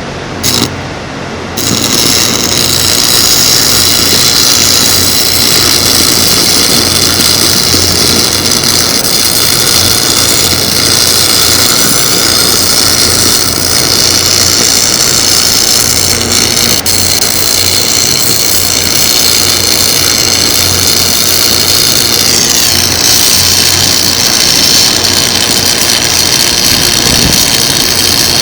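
Electric arc welding on galvanized steel pipe: the arc's steady loud hiss and crackle, with a low hum underneath, starting after a short burst and running continuously from about a second and a half in.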